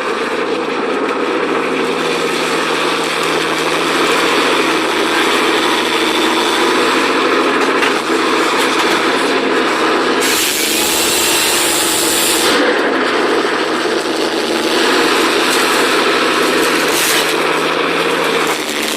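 Engine-driven wood-working or logging machinery running steadily, with a harsh hissing burst lasting about two seconds around the middle.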